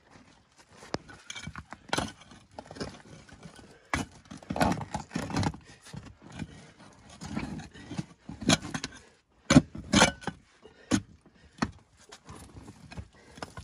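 Hand digging in a trench: a long-handled digging tool chopping and scraping into earth and stones in an irregular series of strikes and scrapes, with the sharpest strikes a little after the middle.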